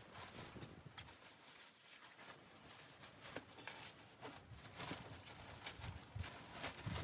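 Faint, irregular soft knocks and clicks, a few of them louder near the end, like things being handled or steps nearby.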